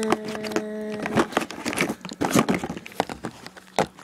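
Plastic paint markers clicking and knocking together as they are handled and gathered from a cardboard box, with rustling against the cardboard. A short steady tone sounds during the first second.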